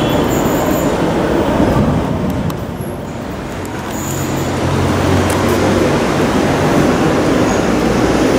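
Steady rumble of traffic noise with the distant sound of an approaching Athens Metro Line 1 electric train, a low steady hum setting in about four seconds in.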